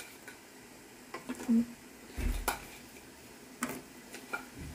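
Scattered clinks and knocks of dishes and kitchen utensils being handled, about five separate strikes, one of them a duller thump near the middle.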